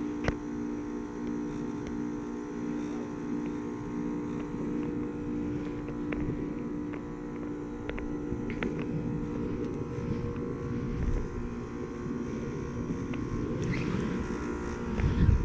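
Carrier heat pump outdoor units running in a defrost cycle: a steady compressor hum with a noisy haze, a low rumble building in the second half, and a thump near the end.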